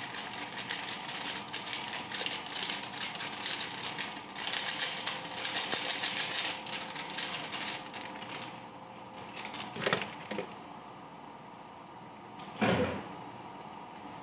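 Rustling of a small plastic seasoning sachet as its granules are shaken into a wok, ending about eight and a half seconds in. Two knocks follow a few seconds apart.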